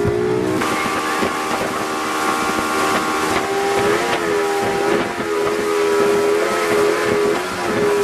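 Mullet boat's engine running steadily under way, its note wavering slightly now and then, over a constant rush of noise.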